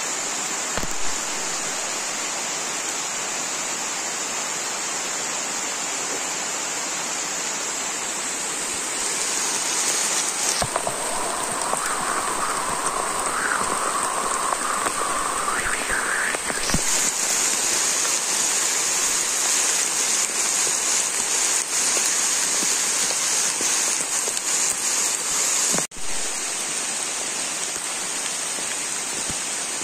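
Steady rushing noise of flowing water, with a wavering high tone for a few seconds in the middle.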